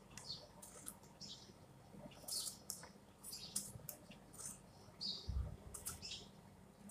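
Knife slicing through a ripe tomato held in the hand: a run of short, faint, wet cutting and squishing noises, with a dull thump a little after five seconds in.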